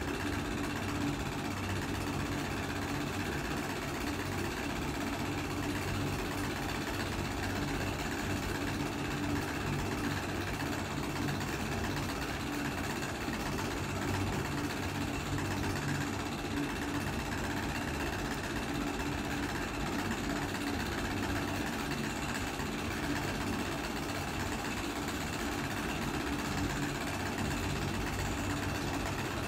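Steady mechanical hum of a running motor, even throughout, over a constant hiss.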